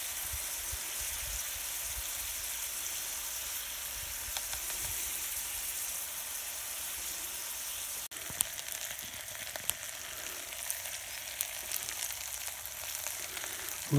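Diced vegetables and sausage frying in butter in a Swedish army mess-kit pot, a steady sizzling hiss. A few light clicks come in the second half.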